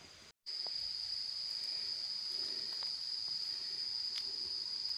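Insects in the forest, a steady high-pitched drone on one tone with a few faint ticks, cutting in abruptly after a moment of silence near the start.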